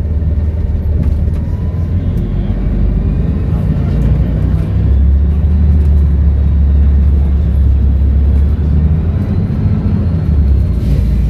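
Volvo B7RLE bus's seven-litre six-cylinder diesel running under way, a low steady drone that swells about halfway through and eases back near the end. A faint high turbo whistle sits above it.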